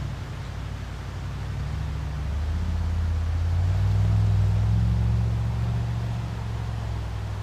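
A vehicle engine running with a low hum that rises in pitch and grows louder about two and a half seconds in, then eases back down.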